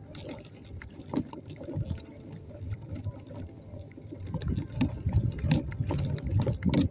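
Wind buffeting a phone microphone during a bicycle ride over rough grass, with rattling clicks from the bike. The gusts are uneven and get louder about halfway through.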